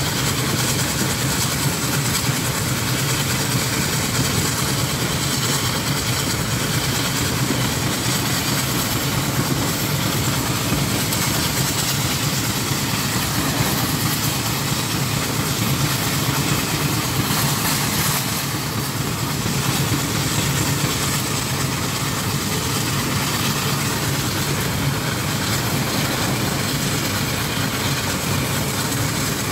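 Burrell steam traction engine under way on a road, heard from on board: a steady, continuous mix of engine working and running noise.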